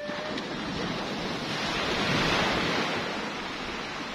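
Sea waves washing onto the beach: a rushing surge that swells to a peak about two seconds in, then eases off.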